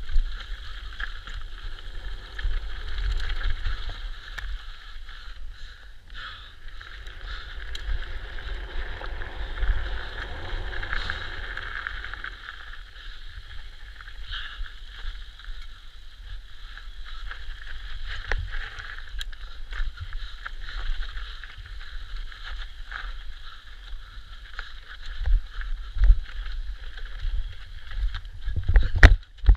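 E-mountain bike descending a rough dirt trail fast, heard through a mounted action camera: steady wind and tyre rumble with the bike rattling over roots and rocks. Several heavy knocks come near the end.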